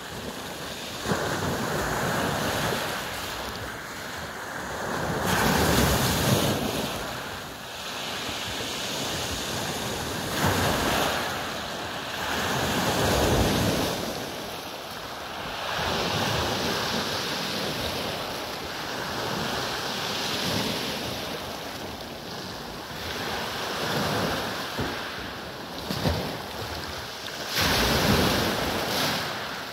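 Small sea waves breaking and washing up a pebble beach, the surf swelling and easing every few seconds.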